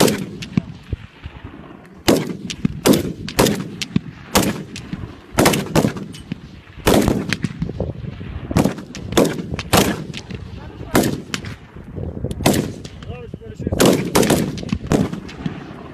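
Gunfire: single shots and short bursts at uneven intervals, roughly one a second, each followed by a ringing echo.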